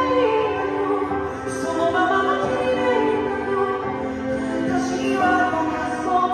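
Live rock-band ballad in a stadium, a high sung voice holding long, slow notes over the accompaniment.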